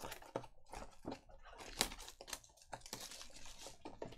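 Clear plastic shrink wrap being torn and peeled off a trading-card box, crinkling in irregular sharp clicks and crackles.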